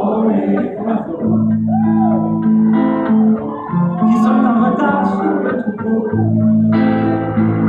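Live band music: guitar to the fore over a steady bass line, with sustained notes and a few sliding notes, in a stretch without sung words.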